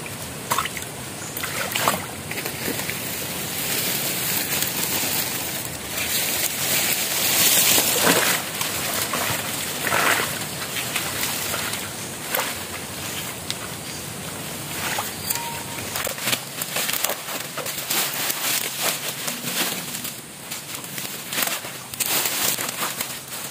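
Shallow muddy stream water sloshing and splashing as someone wades in it and packs a log and palm fronds into a makeshift dam, with irregular splashes over a steady rush of flowing water, louder for a few seconds near the middle.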